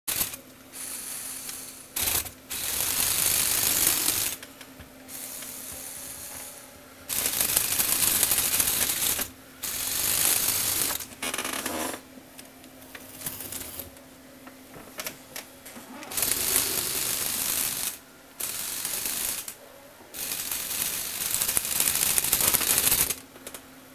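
Motorized Lego Technic snowmobile model driving under its battery-powered electric motor, its plastic gears and drive rattling and clattering. The noise comes in stretches of a few seconds each, with short quieter breaks between them.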